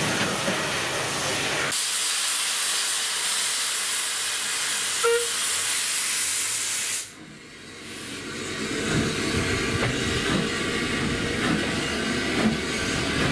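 Steam locomotive venting steam with a steady loud hiss, broken by a brief pip about five seconds in; the hiss cuts off suddenly just past halfway, and the rumble of the moving train then builds up.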